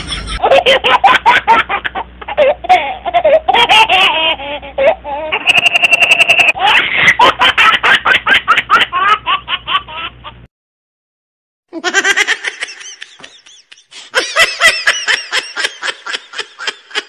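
Laughter in quick repeated bursts. It cuts off abruptly to dead silence about ten seconds in, and laughter starts again about a second later.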